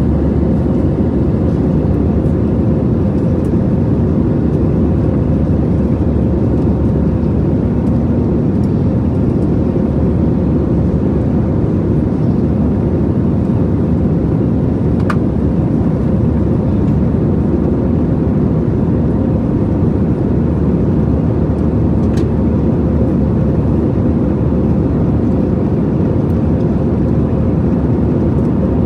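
Steady drone of an Airbus A320-214's CFM56-5B4/P turbofans and airflow, heard from inside the economy cabin, with a faint steady whine running through it.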